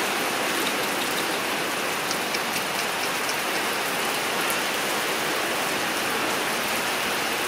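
A steady, even, rain-like hiss, with a few faint light clicks about two to three seconds in.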